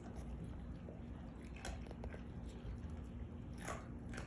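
Dogs chewing and crunching on raw chicken, with a few sharp cracks of bone, the loudest near the end.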